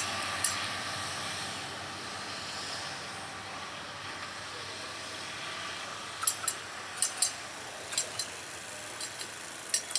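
A KAI multiple-unit train running away along the track, its rolling noise slowly fading. In the second half come pairs of sharp metallic clicks about once a second: wheels crossing rail joints.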